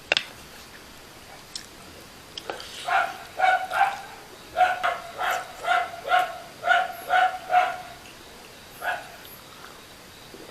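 A dog barking repeatedly, about a dozen short barks of much the same pitch at roughly two a second, after a sharp click at the start.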